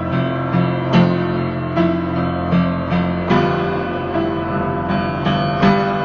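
Piano music: a steady run of repeated notes over held low chords.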